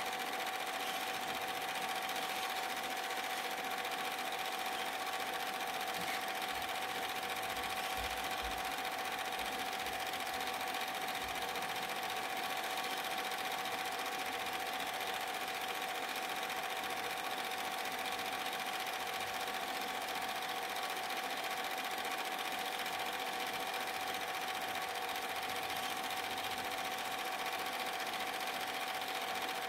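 Super 8 film projector running steadily: a constant mechanical whirr with a held hum from its motor and film mechanism.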